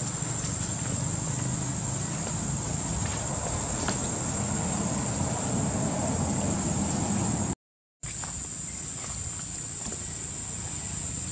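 Insects trilling steadily in a single continuous high tone over a faint outdoor hiss. The sound drops out completely for about half a second, then resumes unchanged.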